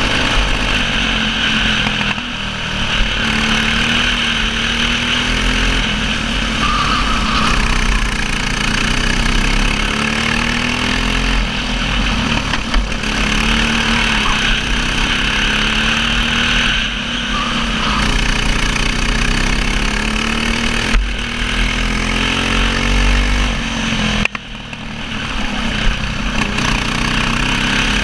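Racing kart engine heard from onboard at race pace, its pitch climbing along each straight and dropping back when the throttle is lifted for corners, several times over; a sharper drop about 24 seconds in.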